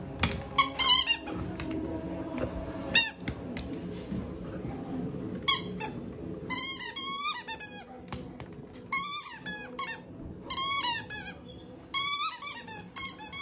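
A squeaky rubber toy ball squeaking in repeated bursts of quick, high-pitched squeaks as a dog bites and chews it.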